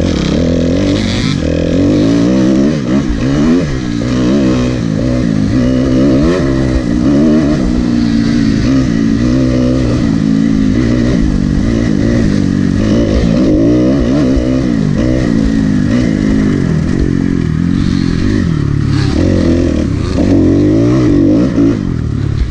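Kawasaki dirt bike engine under way on a trail, heard close up from the rider's helmet camera, revving up and falling back over and over as the rider works the throttle and gears.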